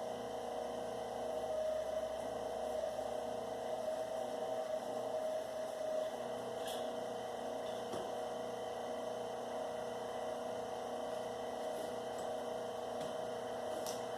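Steady electric hum of a copper wire stripping machine, a little stronger for a few seconds about a second in, with a few faint ticks.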